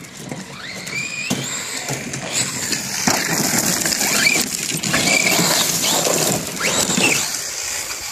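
DHK Zombie 8E 4WD brushless RC truck driving hard: its electric motor whines up in pitch again and again under throttle, over the scrabbling noise of its tyres on gravel and dirt.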